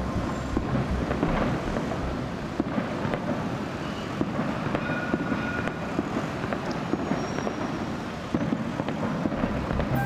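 City street traffic noise, with a tram on its rails: a steady rumble and hiss of passing vehicles, with a few faint high whistling tones in the middle.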